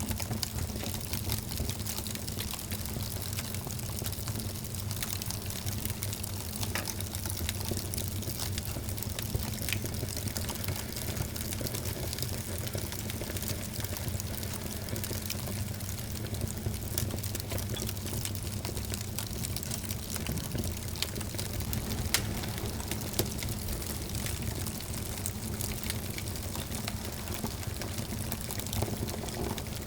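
Fireplace fire burning steadily, a soft rushing hiss with frequent small crackles and pops, one louder pop about two-thirds of the way through.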